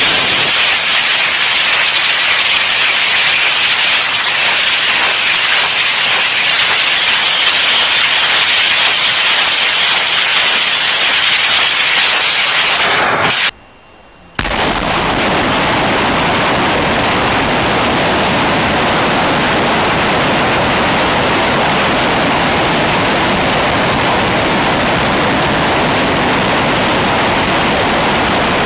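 BM-21 Grad multiple rocket launcher firing a salvo: a loud, steady rushing noise of rockets launching in rapid succession. It cuts out for about a second halfway through and resumes, duller, in a second recording of another salvo.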